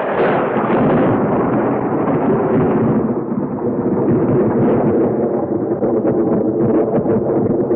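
Cartoon explosion sound effect: a sudden loud blast that runs on as a long, steady rumble without a break.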